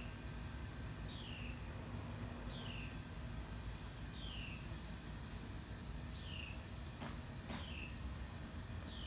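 Evening chorus of insects trilling steadily at a high, even pitch, with a bird repeating a short downward-slurred call every second or so over a low background rumble. Two faint clicks come about seven seconds in.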